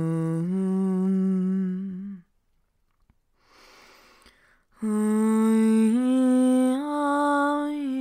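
One voice toning long held humming notes for a light language activation: a note that steps up in pitch and stops about two seconds in, a breath, then a second long note that climbs in steps and falls back near the end.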